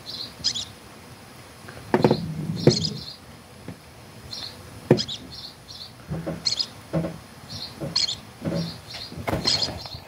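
Dubbed night-forest sound effects: short high chirps, like birds or insects, repeat in little clusters. Low knocks and thumps sound every second or so, loudest about two seconds in and again at five seconds.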